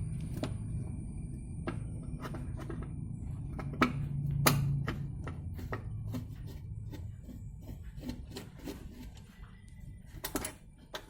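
Background music, with scattered light clicks and taps of a screwdriver working a screw out of a scooter's plastic panel cover.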